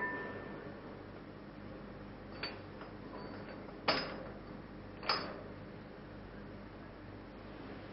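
Steel parts of the hydraulic bolt-tightening tool clinking against the bearing-cap studs as they are set in place: a light click about two and a half seconds in, then two sharper metal clanks about a second apart. A steady low hum and hiss runs underneath.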